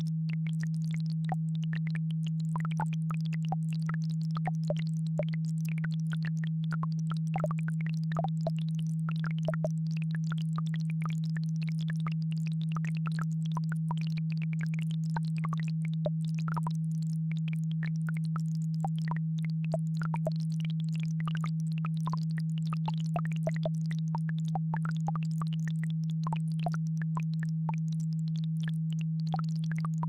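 A steady low electronic sine tone from an isochronic-tone track, with a faint babbling brook trickling and ticking underneath.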